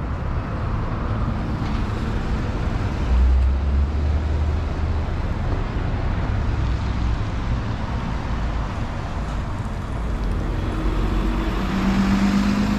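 City street traffic: a steady wash of passing vehicles, with a louder low rumble about three seconds in and a steady engine hum coming up near the end.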